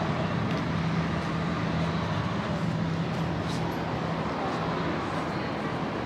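Street traffic noise with a steady low engine hum from a vehicle running; the hum weakens about five seconds in.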